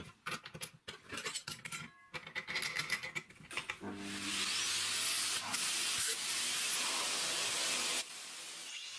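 Clicks and rubbing of handling as a PVC-pipe dust shroud and clamp are fitted to a cordless angle grinder. About four seconds in, a vacuum cleaner starts up and runs with a steady airy hiss over a low motor hum, dropping quieter about a second before the end.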